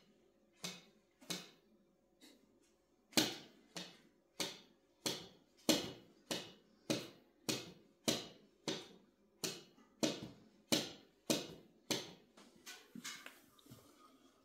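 A husky kicking its legs in its sleep while dreaming, its paws knocking against wood. A few scattered knocks come first, then a steady run of about one and a half a second starts about three seconds in and softens near the end.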